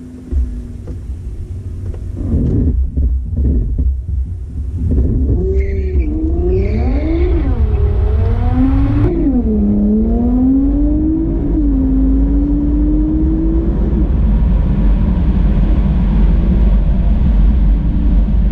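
Car engine revving up and down several times, then holding a slowly rising note before settling back to a steady low running sound.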